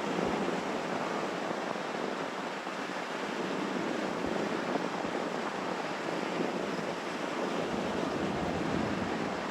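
Steady rush of sea surf, with some wind.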